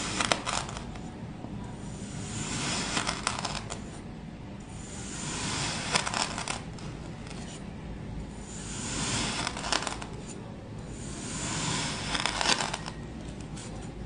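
A knife slicing thin layers off a packed block of kinetic sand, five cuts about three seconds apart. Each cut is a soft gritty scrape that swells and ends in a burst of crisp crackles.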